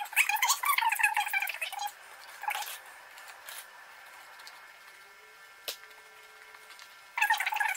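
A spoon squeaks and scrapes as it presses a sticky chocolate-and-biscuit mix into a silicone mould, for about the first two seconds. After that it is quiet, with one sharp click later on.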